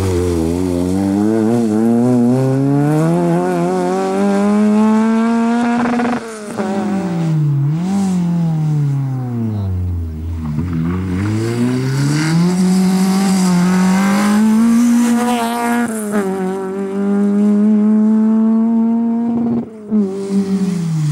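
Peugeot 306 rally car's engine revving hard, its pitch climbing through the gears with drops at each shift, falling steeply under braking about halfway through and then climbing again. It is held at high revs near the end, with short breaks where one pass gives way to the next.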